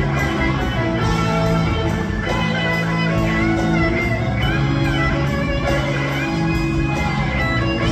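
Live rock band playing: electric guitar lines with bending notes over long held low chords.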